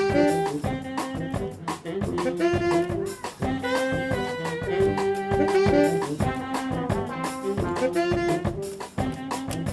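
Brass band playing swing-funk: trombones, trumpets and saxophones hold and shift chords over a tuba bass line and a drum kit keeping a steady beat.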